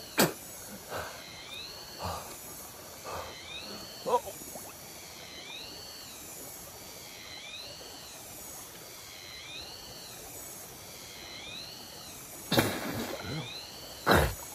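Stream water splashing and sloshing around a man wading and ducking under while catching fish by hand, loudest near the end as he comes back up. Behind it, a faint high call that rises then falls repeats about once a second.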